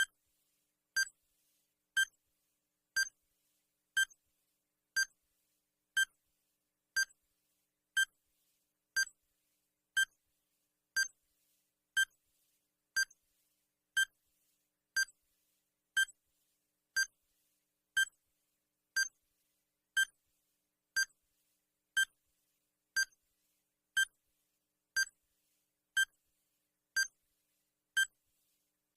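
Timer sound effect: one short, sharp electronic beep-tick every second, evenly spaced, counting down the seconds.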